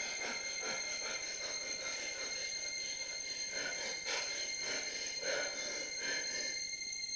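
A steady, high-pitched electronic ringing tone held throughout, over a soft, shifting hiss and rustle: an ambient part of the stage show's electronic score.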